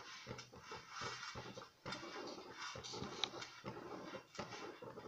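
Silicone pastry brush rubbing back and forth over a stainless steel plate, spreading ghee: quick, irregular swishing strokes, a few each second.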